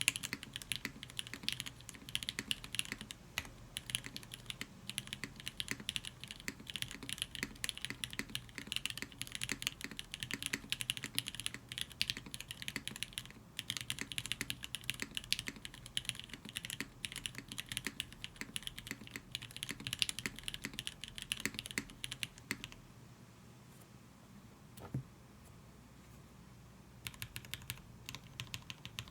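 Continuous typing on a Tsukuyomi custom mechanical keyboard with lubed SP Star Nana switches, a full aluminium plate, top mount and no dampening, under GMK-style keycaps. The keystrokes stop about two-thirds of the way in, leaving one lone key press, then the typing resumes near the end.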